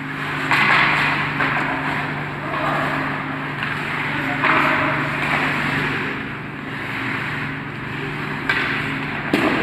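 Ice hockey play: skate blades scraping and carving the ice in repeated hissing strokes, with sticks clattering, over a steady low hum, and one sharp hit on the puck or boards near the end.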